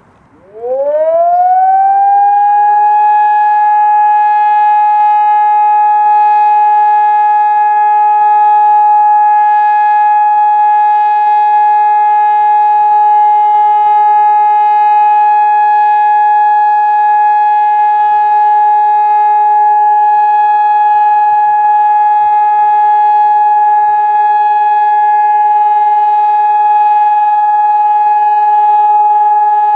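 Hörmann ECN 2400 electronic civil-defence siren starting up: its tone glides quickly up over about two seconds and then holds one steady, loud pitch. The unbroken steady tone is the German all-clear (Entwarnung) signal.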